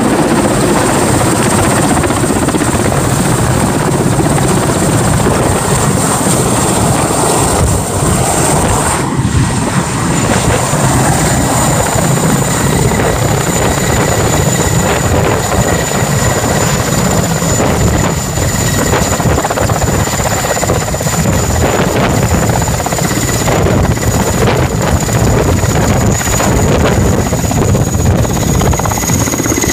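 Mil Mi-8 helicopter landing close by: loud, steady main-rotor beat with a high whine from its twin turboshaft engines, the whine dipping slightly in pitch near the end as it settles onto the pad.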